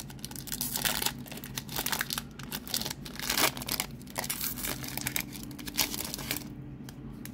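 Foil wrapper of a Pokémon trading card booster pack being torn open and crinkled by hand: a run of irregular crackling rustles that thins out near the end.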